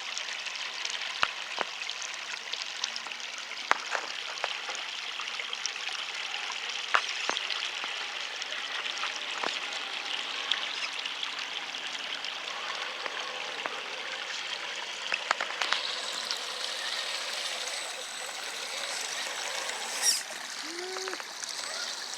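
River water running steadily over rocks, with a few sharp clicks scattered through it.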